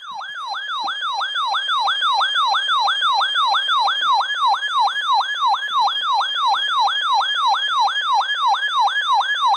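Electronic siren-style alert tone: a rapid yelp that sweeps down and back up about three times a second, cutting off suddenly near the end. It is an emergency alert signal heralding a broadcast severe thunderstorm warning.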